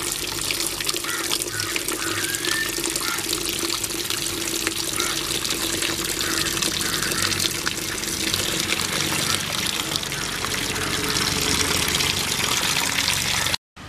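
Water running hard from an outdoor standpipe tap and splashing onto a steel plate and into a plastic bowl, while hands slosh raw turkey pieces in the bowl to rinse them. The sound is steady and cuts off suddenly near the end.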